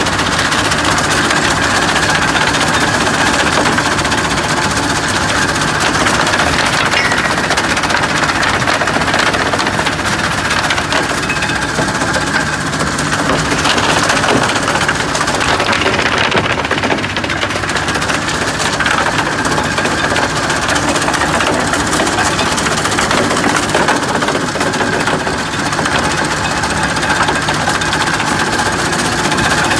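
Soil screening machine running steadily, with stones and clods rattling over its mesh and star-roller screens and an engine running underneath.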